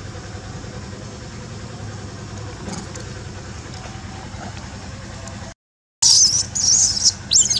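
A steady low rumble, then, after a brief dropout about six seconds in, a baby macaque screaming in loud, shrill, wavering squeals.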